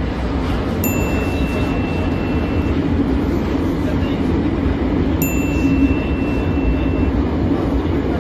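Metro train running, heard from inside the carriage as a steady low rumble and rail noise. A thin high tone sounds twice, about two seconds each time.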